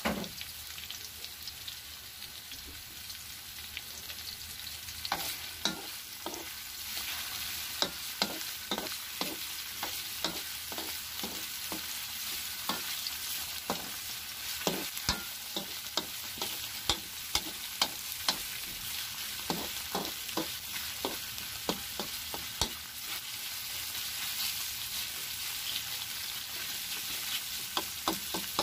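Pork sizzling as it sautés in a pan with garlic, onion and tomato. From about five seconds in, a spatula stirs it, with frequent sharp knocks and scrapes against the pan.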